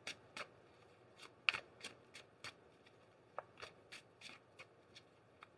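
A tarot deck being shuffled by hand: a faint string of short card flicks and swishes at irregular intervals, about two to three a second.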